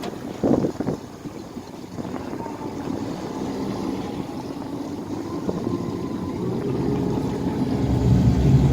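Twin 60 hp Mercury Command Thrust four-stroke outboards running as the boat pivots in a tight turn, one motor in forward and one in reverse. The engine sound grows louder and deeper over the last two seconds as the motors are throttled up.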